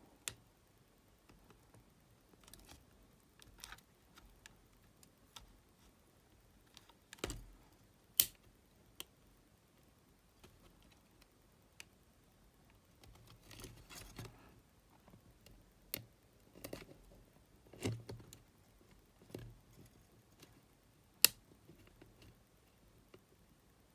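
Faint, scattered small clicks and handling noises of a small screwdriver and fingers working on a cassette Walkman's mechanism and its plastic tape-counter housing. Two sharp clicks stand out, one about eight seconds in and one near the end.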